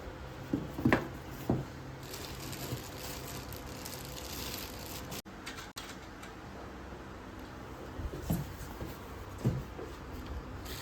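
Objects being handled: a few short knocks in the first two seconds and two more near the end, over a steady low hum.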